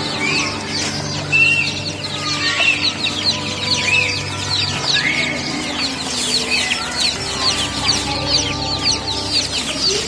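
A cageful of chicks peeping without pause: many short, high, falling peeps overlapping, with now and then a longer call. A low steady hum sits underneath and drops away about halfway through.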